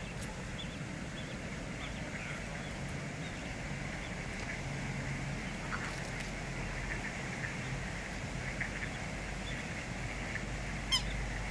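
Waterfowl calling: many short, scattered quacking calls from ducks and swans, with one brief, sharp, high-pitched call near the end.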